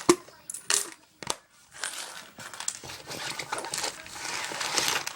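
A few sharp clicks, then steady rustling and crinkling as a duffle bag and the gear in it are rummaged through by hand.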